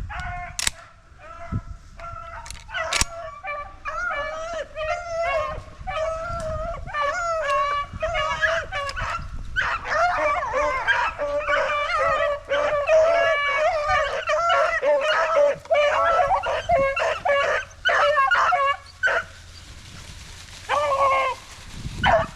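A pack of rabbit hounds baying and yelping together in full cry as they run a rabbit's scent trail. A few voices start it, the chorus thickens into many dogs at once, drops off near the end, then comes back briefly in one more burst.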